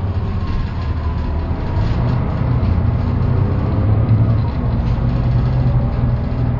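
MAN 18.310 city bus heard from inside the cabin while under way: the MAN D 2866 six-cylinder diesel gives a steady low drone, with faint whining tones above it that drift slightly lower in pitch.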